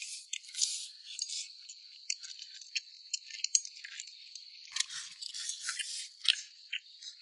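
Eating sounds at the table: chopsticks clicking and scraping against bowls in quick, irregular strokes, with a denser flurry about five seconds in.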